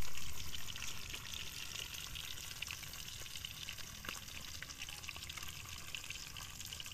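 Whole catfish frying in hot oil in a steel wok, sizzling with fine crackles and spatters. The sizzle is loudest at the start, then settles to a steady level.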